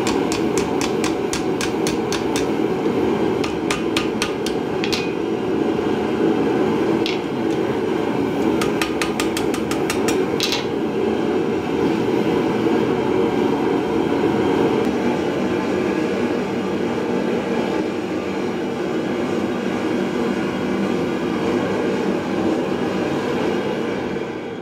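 Cross-pein hammer striking hot file steel on an anvil as the knife blank's tail is rolled into a scroll: quick runs of ringing blows over the first ten seconds or so, then no more. A gas forge runs with a steady rushing noise throughout.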